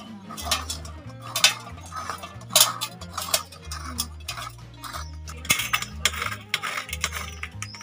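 Raw green papaya being grated on a stainless steel flat grater resting on a steel bowl: a run of uneven scraping strokes, roughly one every half second to second.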